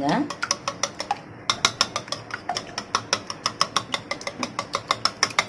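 Wire whisk beating raw eggs in a ceramic bowl, the wires clicking against the sides of the bowl. The strokes are sparse at first, then settle into fast, even clicking, about six or seven a second, from about a second and a half in.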